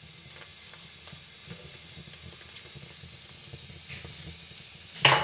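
Gas stove burner flame hissing steadily under whole eggplants roasting directly on it, with small scattered crackles from the charring skins. A sudden loud clatter comes near the end.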